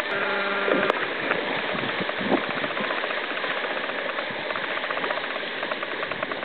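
Fast river water rushing through rapids around an inflatable raft, a steady rushing noise. A short pitched sound is held for under a second near the start.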